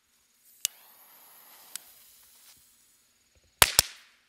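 Firecrackers packed into a pumpkin's carved eyes going off one by one: a sharp bang about half a second in, a faint hiss, then two louder bangs in quick succession near the end.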